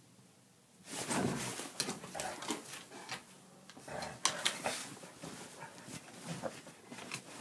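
An Irish Setter thrashing and rolling on a blanket-covered bed, starting about a second in: irregular rustling and scuffing of the bedding, with the dog's own small vocal noises.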